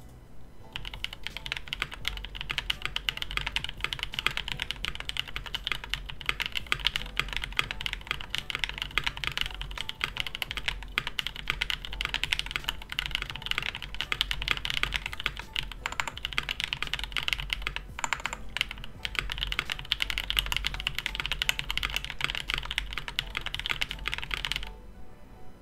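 Fast, continuous typing on a KBD67 Lite mechanical keyboard fitted with Durock POM T1 (Sunflower) heavy tactile switches, lubed with Krytox 205g2 and without switch film: a dense run of keystroke clacks that starts just under a second in and stops about a second before the end.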